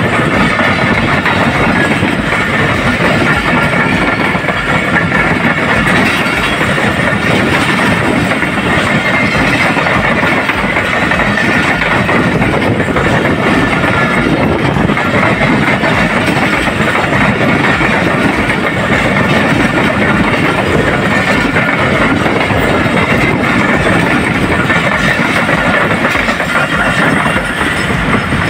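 Pakistan Railways express passenger coaches rolling past at speed: a loud, steady rumble and rattle of wheels running over the rails, with clickety-clack from the rail joints.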